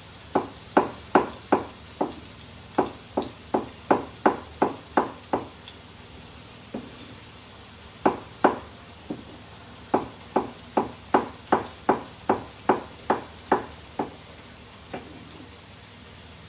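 A kitchen knife chopping on a wooden cutting board in quick runs of sharp knocks, about three a second, with short pauses between the runs. Under it runs a steady faint hiss of oil heating in a pan.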